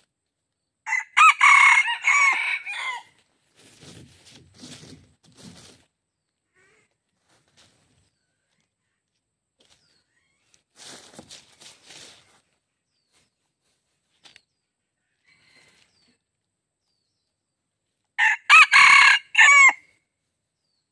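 A junglefowl-type rooster crows twice, a loud crow of about two seconds near the start and another near the end. In between there is faint rustling in dry leaves.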